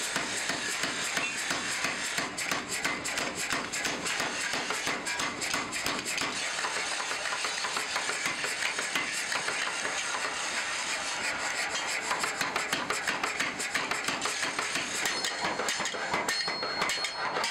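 Mechanical power hammer striking a red-hot steel cleaver blank in a rapid, steady run of blows.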